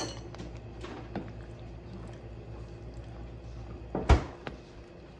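A spoon stirring thick creamy soup in a pot, with small scraping clicks and one sharp knock of the spoon against the pot about four seconds in. A low steady hum runs underneath.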